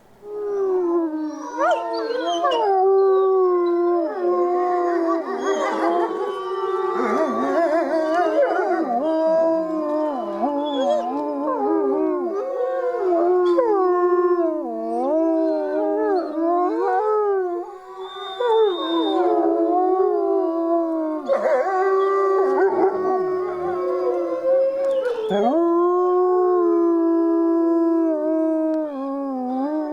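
A chorus of several wolves howling together. Long held notes at different pitches overlap with gliding, wavering notes. It starts suddenly and breaks off briefly twice before picking up again.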